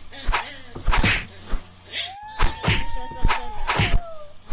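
A puppy and a kitten play-fighting: irregular scuffling thumps and slaps. About halfway through comes one long whining cry that rises a little, then falls away.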